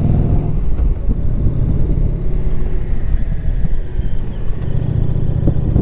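Indian Challenger's V-twin engine running under way at road speed, heard from the bike with a low wind rumble. The engine note eases off about half a second in and comes back up near the end.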